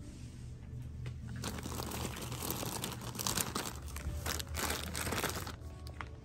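Plastic wrapping of a paper-towel multipack crinkling as it is handled and lifted into a shopping cart, starting about a second and a half in and stopping shortly before the end, over quiet background music.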